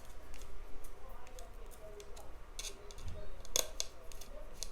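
Sharp plastic clicks and scraping as a tool pries at the seam of a small selfie drone's shell, with faint creaks and a dull knock about three seconds in. The shell does not come apart because one screw is still in place.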